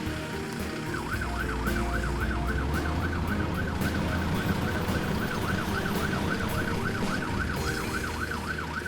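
Emergency-vehicle siren in a fast yelp, rising and falling about four times a second, starting about a second in and stopping near the end, over a low engine rumble.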